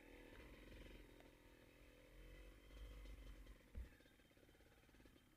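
Motorcycle engine running faintly, its pitch wavering, under low wind rumble on the microphone, with a single thump near the end.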